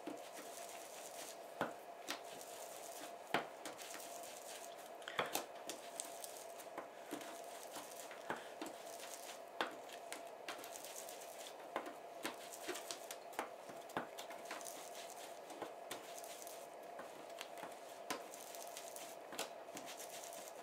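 Scattered light taps and soft knocks of an ink-blending block dabbing distress ink onto grungepaper flower cut-outs and the craft mat, irregular and a few a second at most. A faint steady hum sits underneath.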